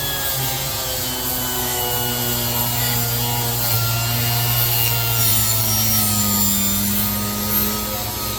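Orbital sander with a 220-grit Diablo disc running against a rusty steel scraper blade clamped in a vise, sanding the rust off. A steady whir with a rubbing grind, its pitch drifting slightly as the disc is pressed and moved.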